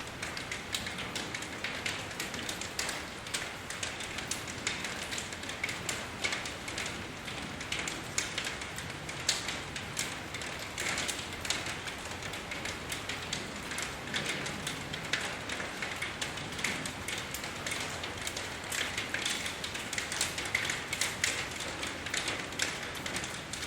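Steady rain with dense, irregular drips and patter of drops striking a surface.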